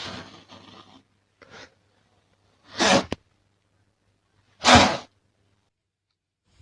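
A domestic cat hissing twice, a couple of seconds apart, in short sharp bursts, the first ending in a spitting click: a defensive warning at a fake cat.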